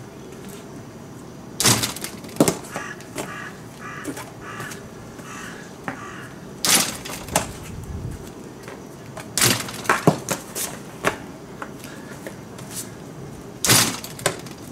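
A baseball smacking into the pocket of a freshly restored 1950s Wilson A2151 leather outfielder's glove, about nine sharp pops at uneven intervals, some in quick pairs, as the glove is tried out catching.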